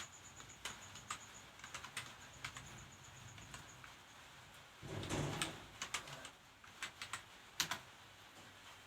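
Computer keyboard keys being pressed in irregular, unhurried keystrokes while typing Hindi text in a typing test. A brief louder thump comes about five seconds in, and one sharp, loud key click comes near the end.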